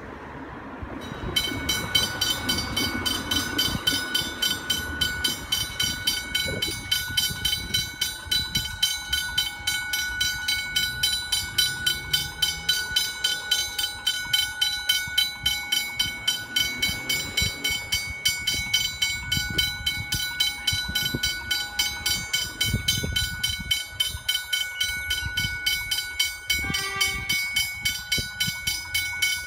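Railway level-crossing warning bell ringing in evenly repeated strokes, starting about a second in as the crossing activates and the boom gate lowers: the signal that a train is approaching.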